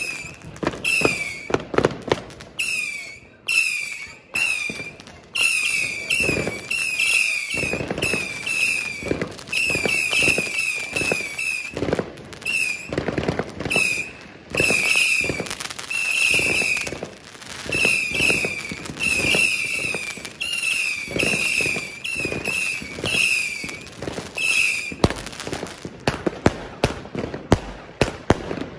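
Feuerblitz 240-shot compound firework box firing a fast string of shots, each with a short whistle, about two a second, among sharp bangs. Near the end the whistles stop and it fires a quick run of bangs.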